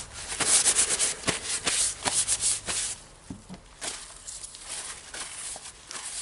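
Paper towel rubbing and crumpling as greasy hammer-drill parts are wiped clean: a rapid scratchy rustle for about the first three seconds, then quieter handling with a few soft knocks.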